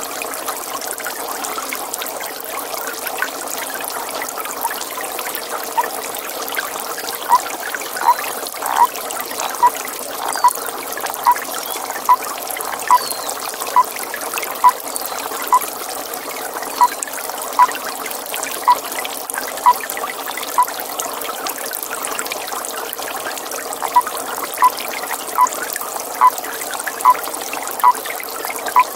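A toad calling at a pond: short single notes repeated about once every three-quarters of a second, starting about five seconds in, pausing briefly after about twenty seconds, then resuming. Behind them, water trickles steadily.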